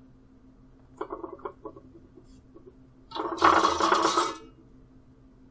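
A few light clicks and clinks as the soldering iron and plastic sheet are handled, then about a second and a half of loud crinkling of the plastic bag sheet.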